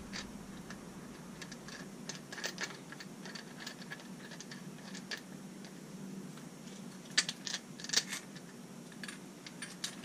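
Light, scattered clicks and taps of metal parts being handled: a dirt-bike fork tube turned in the hands while its bottom bolt is fitted, with a few sharper clicks about seven to eight seconds in. A faint steady hum runs underneath.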